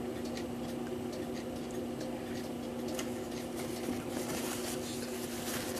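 Light handling and wiping of a greasy brass clock cable drum with a paper towel: faint rubbing and small clicks over a steady low hum.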